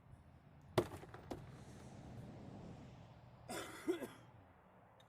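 A truck's plastic door panel being pressed back onto the door, with a sharp knock about a second in as a body clip snaps home and a lighter one just after. Near the end comes a short breathy sound, like a sigh or grunt.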